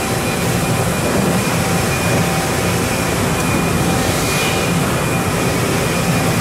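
Mazak HCR-5000 5-axis horizontal machining center milling aluminium: a steady, dense rush of cutting and machine noise, with faint high tones that come and go.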